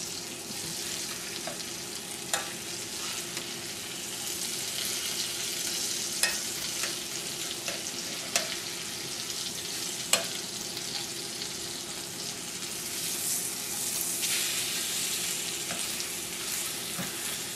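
Flour-dredged chicken breasts sizzling steadily in olive oil and butter in a stainless steel sauté pan. Metal tongs click sharply against the pan four or five times as the pieces are turned.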